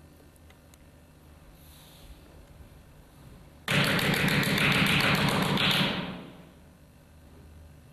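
A sudden loud rattling burst of quick taps, roughly eight a second, lasting about two seconds before fading out.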